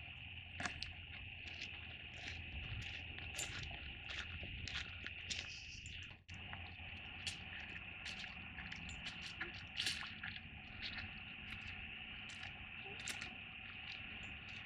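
Footsteps crunching irregularly along a dirt-and-leaf hiking trail, over a steady high-pitched buzz.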